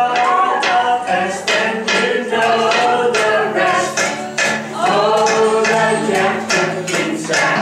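A group of voices singing a song to acoustic guitar, with sharp knocks about twice a second keeping the beat, kitchen utensils such as rolling pins and pots struck in time.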